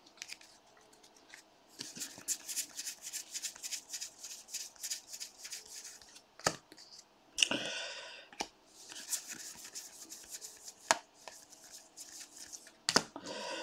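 A stack of baseball trading cards being flicked through by hand, each card sliding off the next with a quick, light scrape. The flicks come in rapid runs of several a second, with a few sharper clicks among them.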